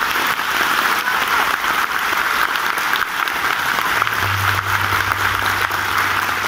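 Dense, steady applause from a theatre audience and actors clapping on stage.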